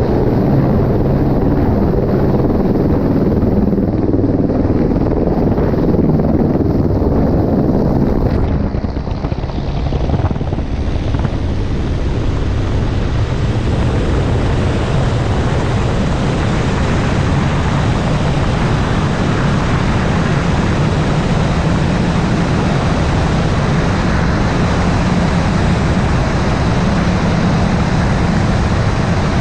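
Helicopter engine and rotor running loud and steady. About eight seconds in the sound dips briefly, then a broader, higher hiss fills in and holds.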